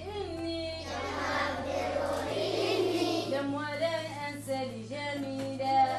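A group of children singing together over background music, with a steady low sustained note underneath that shifts to a new pitch a little over two seconds in.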